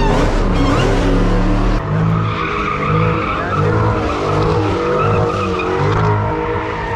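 A car spinning its tires, the engine revving up and down over and over. A steady tire squeal joins in about two seconds in.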